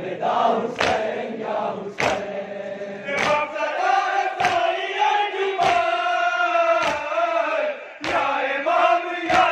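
A group of men chanting a noha, a Shia lament, in chorus, with a sharp beat about every 1.2 seconds from matam, the rhythmic beating of chests with the hands.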